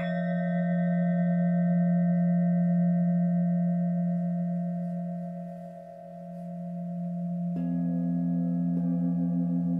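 Singing bowls ringing: a low bowl holds one steady tone that swells and then dips. About seven and a half seconds in, a higher bowl is struck and joins it, and it is struck again about a second later.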